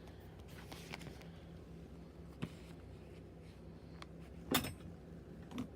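Faint handling clicks and light rustling over a low steady hum, with a sharper click about two and a half seconds in and a louder one about four and a half seconds in.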